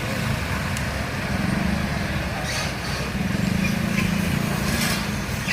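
Road vehicle engines running in traffic, a steady low rumble that swells twice as vehicles pass close by, with a few brief hisses.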